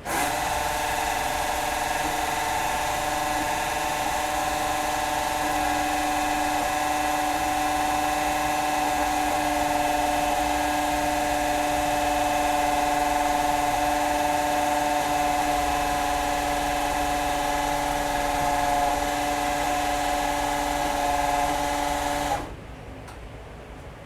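Electric drill running steadily, spinning the oil pump of a Chevy 235 straight-six through the distributor hole to prime the engine and build oil pressure. A steady whine that starts at once and cuts off about 22 seconds in.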